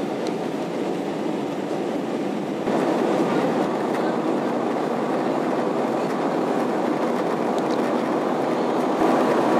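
Steady cabin noise inside an Airbus A320 climbing after takeoff: the even rush of the engines and airflow, a little louder from about three seconds in.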